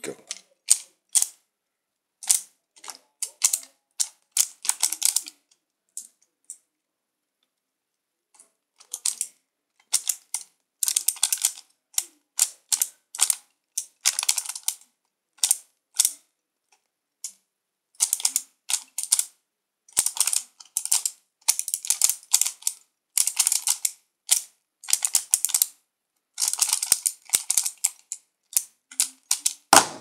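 A Pyraminx puzzle being speedsolved, its plastic pieces clicking and clacking in rapid bursts of turns with short pauses between them, the longest lasting about two seconds, some six seconds in.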